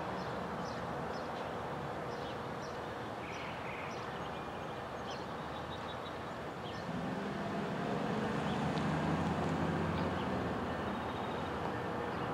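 Small birds chirping in short, repeated notes over a steady background hum, with a low engine rumble swelling about seven seconds in and fading again.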